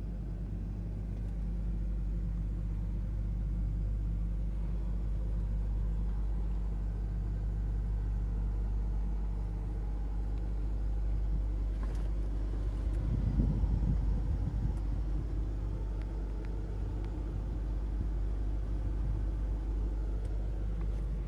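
2002 Land Rover Discovery's engine idling steadily shortly after a cold start, heard from inside the cabin as a low rumble. A brief louder rumble swells about thirteen seconds in, then settles.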